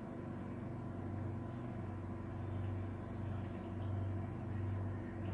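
A steady low hum that swells and eases every second or so.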